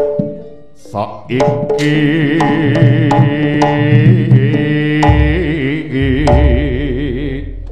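Live jaranan gamelan music: sharp hand-drum strokes under a held, wavering melody with strong vibrato. A deep boom comes in about five seconds in and again a second later.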